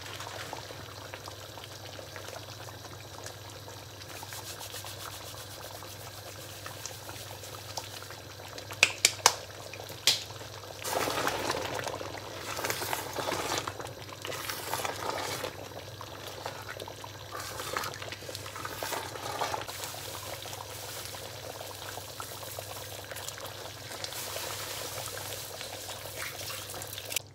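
Curry gravy simmering and bubbling in an aluminium pot, over a steady low hum. About nine seconds in come a few sharp knocks, then a spatula stirring and scraping through the thick gravy for several seconds.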